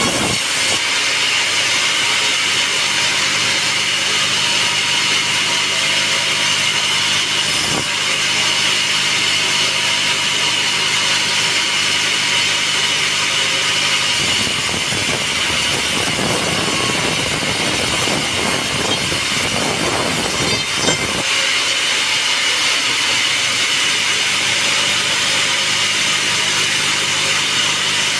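Sawmill saw cutting through a teak log, a steady loud machine noise with a high whine, growing coarser and fuller for several seconds midway.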